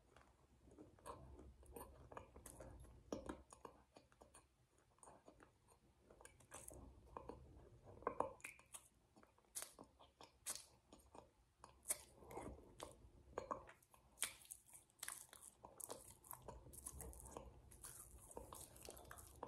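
Faint mouth sounds of a person chewing and lip-smacking a purple, snow-like treat eaten from a glass: irregular wet clicks and smacks with occasional small crunches, coming thicker in the second half.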